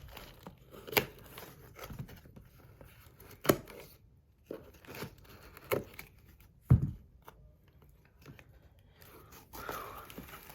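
Packaging being handled: rustling and scraping, with a few sharp taps and knocks. The loudest come about a second in, three and a half seconds in and near seven seconds.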